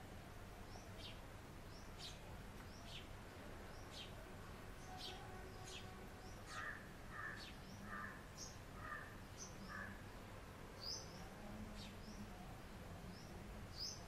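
House sparrows chirping: short high chirps about once a second, with a run of five evenly spaced lower notes around the middle, over a steady low background rumble.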